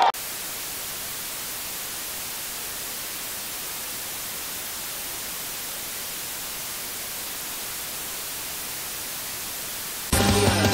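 TV static sound effect: a steady, even white-noise hiss, cut off near the end as a louder sound comes in.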